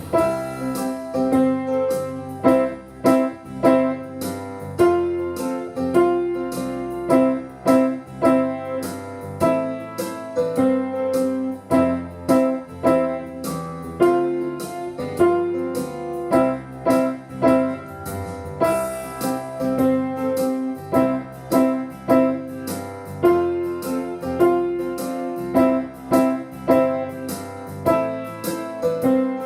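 Keyboard playing a simple beginner piece over a backing accompaniment, built mostly on repeated middle C notes with a few neighbouring notes, to a steady beat.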